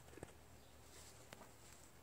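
Near silence, with two faint clicks: one just after the start and one past the middle.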